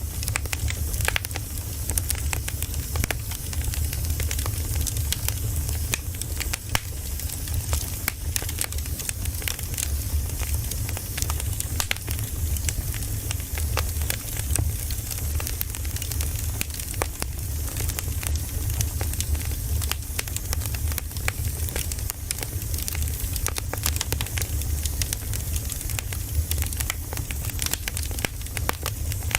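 Campfire burning: the wood crackles and pops in many small, irregular sharp snaps over a steady hiss and a low rumble.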